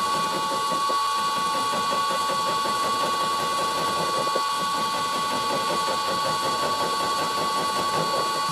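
Vintage Karger lathe spinning an 80 mm indexable-insert face mill through a steady cut across a block of scrap steel. A steady whine runs over a continuous rough cutting noise at an even level.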